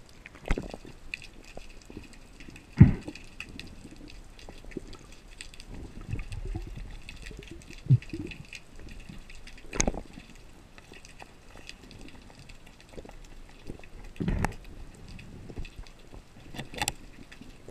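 Underwater sound through a camera housing: a spearfisher handling a speared fish and a carbon speargun, giving a few dull knocks and thumps, the loudest about three seconds in, over a faint steady crackle.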